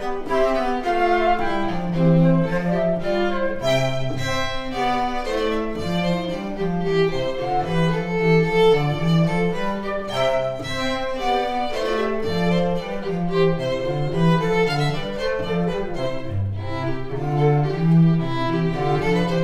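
Instrumental music: bowed strings playing a flowing melody over a lower sustained line.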